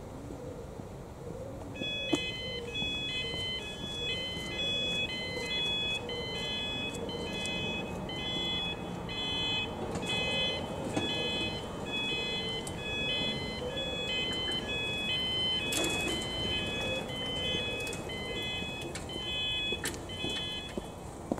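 Railway level crossing warning alarm starting about two seconds in, a repeating two-tone electronic warble that sounds steadily while the crossing closes for an approaching train, then stops shortly before the end.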